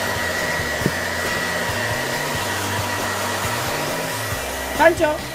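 Handheld hair dryer running steadily, blowing a wet puppy's fur dry: an even whooshing hiss with a thin high whine.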